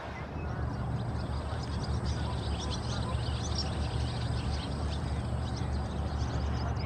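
Outdoor field ambience: a steady low rumble under many short, high chirps and twitters.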